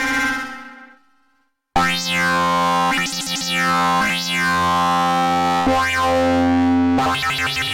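Waldorf Pulse 2 analog monosynth playing presets, recorded straight from the synth. One patch dies away into a moment of silence, then the next starts with sustained low notes. Each new note brings a filter sweep that opens bright and closes again, about every two seconds.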